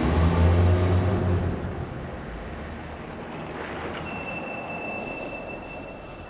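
Low vehicle engine rumble, loud for the first second and a half, then fading to a quieter steady noise. A thin, steady high-pitched tone comes in about four seconds in.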